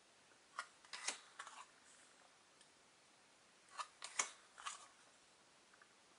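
Glossy football trading cards being flipped through by hand: a few faint, short snaps and slides of card against card, in two brief bunches.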